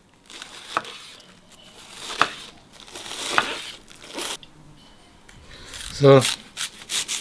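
A knife cutting a washed head of Chinese cabbage into thin strips on a cutting board, in several separate cuts, the loudest about two and three and a half seconds in.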